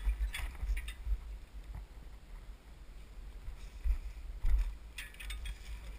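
Mountain bike riding down a rough dirt singletrack, heard from a camera on the bike: a low rumble from the trail with scattered clicks and rattles of the bike, the loudest knocks about four and a half seconds in.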